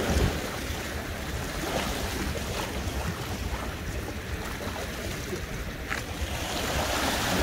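Sea waves washing against shoreline rocks, with wind buffeting the microphone in a low rumble, strongest right at the start.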